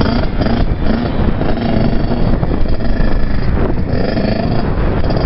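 Kawasaki KX65 dirt bike's small two-stroke single-cylinder engine revving and easing off in turn, its pitch wavering up and down.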